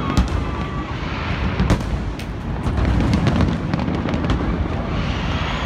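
Large aerial fireworks display: a continuous rumble of booming shells with sharp cracks breaking over it every second or so.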